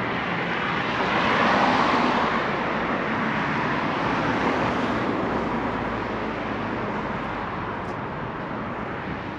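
A vehicle passing by: a broad rushing noise that swells to its loudest about two seconds in and then slowly fades.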